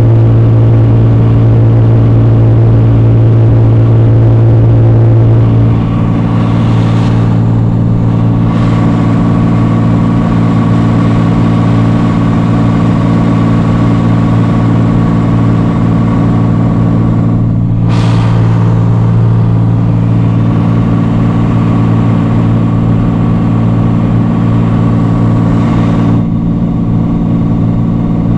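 Cessna 182's piston engine and propeller droning steadily, heard from inside the cabin. About five and a half seconds in the drone drops slightly and its tone changes, then holds steady.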